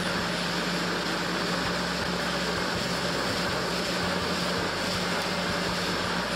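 Sea-Doo GTI 130 jet ski running at a steady cruising speed: an even engine drone with a constant low tone under a broad rush of wind and water, unchanging throughout.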